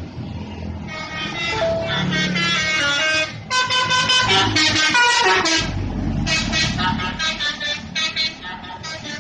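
Indonesian bus 'telolet' horn, a set of multi-tone air horns, playing a quick tune of short toots that change pitch, with a short break about three seconds in. The bus's engine rumbles low underneath, heavier in the second half.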